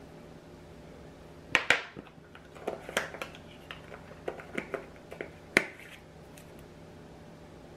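A run of a dozen or so sharp clicks and taps over about four seconds, the loudest about a second and a half in and again near the end: a measuring spoon knocking against a plastic blender jar while powdered ginger is broken up into it.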